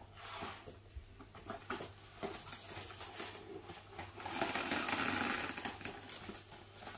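Plastic cling film being pulled off its roll and stretched over a plastic mixing bowl: soft handling clicks and crinkles, then a louder rustling pull of the film lasting about a second and a half, some four seconds in.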